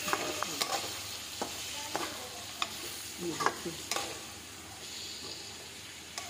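A spatula stirring ivy gourd curry in a frying pan, scraping and knocking against the pan every second or so, over a steady sizzle of the masala frying. The sizzle comes as the cooking water has mostly dried off and the masala is starting to stick. The stirring eases off after about four seconds.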